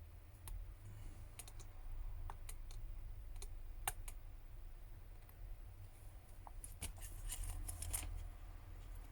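Scattered small clicks and taps of tools and small parts during smartphone reassembly, with a quick run of clicks about seven to eight seconds in, over a low steady hum.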